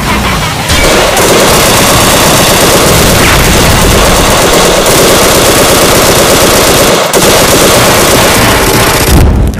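Sustained rapid machine-gun fire, a dense unbroken rattle of shots that starts about a second in, with a brief break about two-thirds of the way through.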